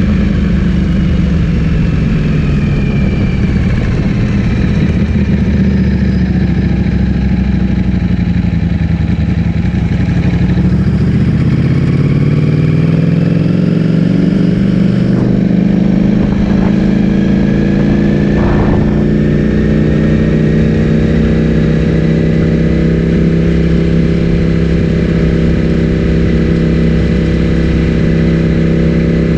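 Ducati Streetfighter V4S's V4 engine with an Akrapovic full-system exhaust, ridden under way: the engine note eases down a little, then rises steadily for about ten seconds and holds a steady pitch for the last ten seconds.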